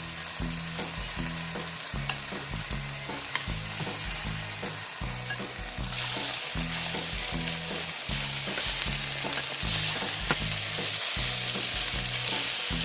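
Salmon fillet frying skin-side down in hot olive oil in a pan, sizzling steadily; the sizzle grows louder about six seconds in.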